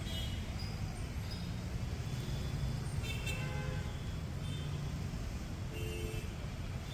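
City street traffic: a steady low rumble of passing cars and scooters, with a couple of short higher-pitched tones, one about three seconds in and another near the end.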